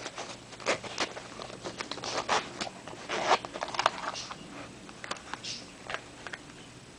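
Hands handling earphone packaging and accessories: irregular clicks and short rustling, scraping noises, with a louder rustle about three seconds in.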